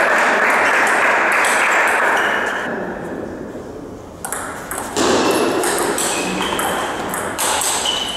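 Table tennis rally: the ball clicking sharply back and forth off the bats and table. A noisy hubbub fills the first two seconds or so, and the hits come through plainly after that.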